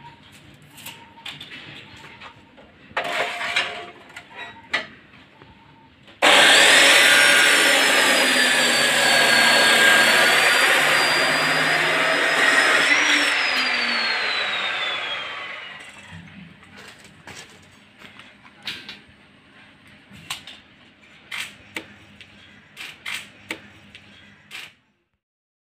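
An electric power tool starts abruptly and runs loud and steady with a high whine for about seven seconds. Its pitch then falls as it winds down and fades out. Scattered clicks and knocks come before and after it.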